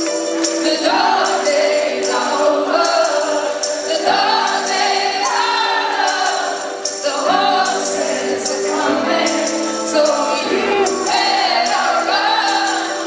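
Live pop-rock band playing, with a woman singing the lead melody into a microphone over sustained chords and a steady, sharp percussive beat. It is recorded from within the audience.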